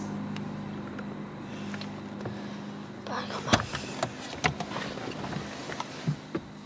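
Car engine idling with a steady low hum that stops about three and a half seconds in. After it, a man's irregular sobbing breaths and sniffs.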